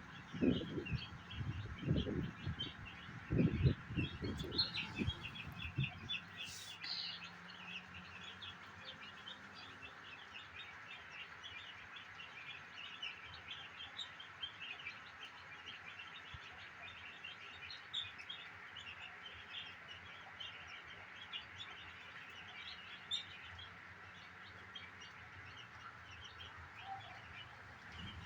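A flock of broiler chicks peeping, many short high chirps overlapping without a break. For the first several seconds, low thumps and rumbles sound under the chirping.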